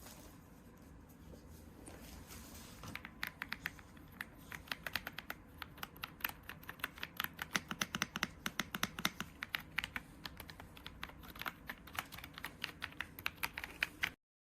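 Typing on an irocks K85R wireless mechanical keyboard: a fast, irregular run of keystrokes starts about three seconds in, after a stretch of faint room noise, and the sound cuts off abruptly near the end.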